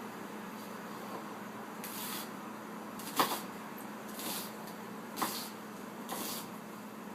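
Kitchen handling sounds over a steady faint hum: a few short rustling hisses and two sharp knocks about two seconds apart.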